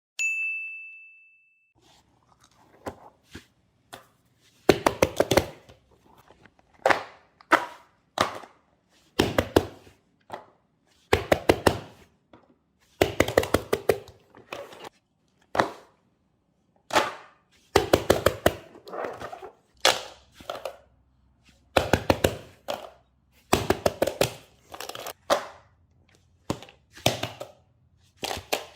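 A short high ding at the start, then repeated bursts of rapid sharp clicks and taps, a cluster of several every second or two, from small hard objects being handled.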